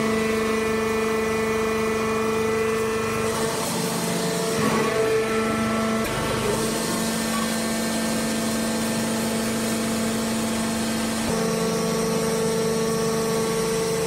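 Hydraulic wood-chip bagging baler's electric motor and pump running with a steady hum, its tone shifting a few times. Brief rustling and knocks about four to five seconds in.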